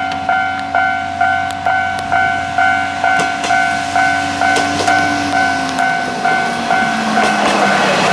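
Japanese level-crossing warning bell ringing steadily, about two dings a second. Under it a Kanto Railway KiHa 2400-series diesel railcar runs past with its engine note falling as it goes by, and there are clicks from its wheels.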